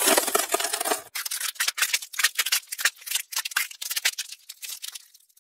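Ice-crackling sound effect: a dense hiss of crackles that breaks into a quick run of sharp cracks and clicks, thinning out and fading away near the end.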